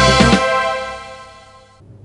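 Electronic keyboard playing the end of a two-hand finger exercise: the low notes stop shortly after the start, and the final held notes fade away and cut off near the end.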